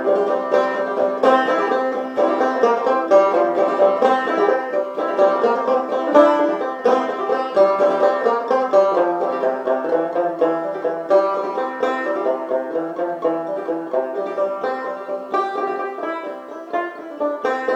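Open-back five-string banjo played clawhammer style in double C tuning (gCGCE), a solo tune in waltz time with a steady run of plucked, ringing notes.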